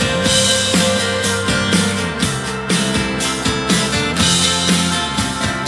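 Music with guitar and a steady drum beat, played from a CD through a pair of Onkyo PS-A5M bookshelf speakers (80 W, 6 ohms) driven by an Onkyo amplifier, heard in the room.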